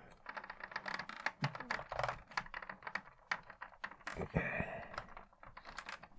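Irregular small plastic clicks, taps and scraping as a 3.75-inch action figure is squeezed and pushed into the cockpit of a plastic X-Wing toy.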